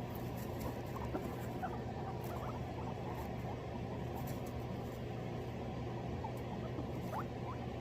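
Guinea pigs making short, soft squeaks, scattered and coming more often near the end, with faint clicks alongside and a steady low hum underneath.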